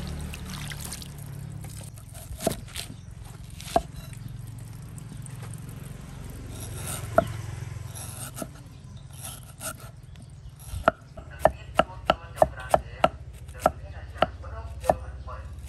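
A meat cleaver slicing a peeled bamboo shoot on a round wooden chopping block, after a splash of water rinses the shoot at the start. A few scattered cuts come first, then in the last third a quick run of chops, about two a second, each stroke ringing briefly.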